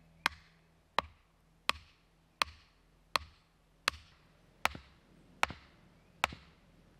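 Hammer blows driving a wooden stake into hard ground: about nine sharp, evenly paced strikes, roughly one every three-quarters of a second.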